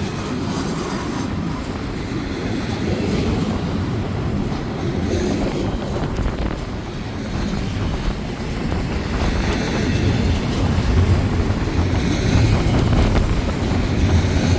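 Intermodal freight train rolling past, a steady low rumble with wind buffeting the microphone, growing a little louder toward the end.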